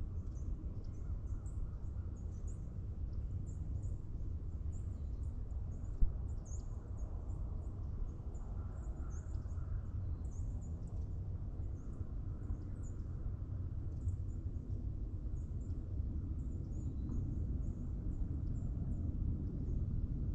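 Forest ambience in the morning: many short, high bird chirps keep coming over a steady low rumble, with one sharp click about six seconds in.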